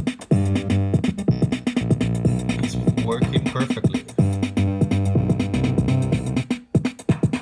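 Korg EM-1 Electribe groovebox playing an electronic pattern: drum-machine hits over a steady beat with pitched synth parts, a short rising sweep about three seconds in, and a brief break near the end. Its newly replaced effect/delay potentiometer is being checked and works.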